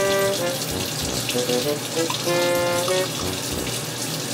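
Bathroom tap running steadily into the sink during toothbrushing, with a couple of short held musical notes over it.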